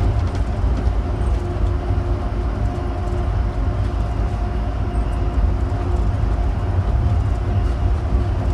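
Interior running noise of a Shanghai Pujiang Line rubber-tyred automated people mover car cruising on its concrete guideway: a steady low rumble with a faint constant whine above it.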